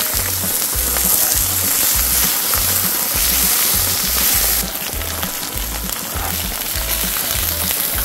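Raw strips of pork belly sizzling on a hot griddle just after being laid down; the hiss drops a little about halfway through. Background music with a steady bass beat plays underneath.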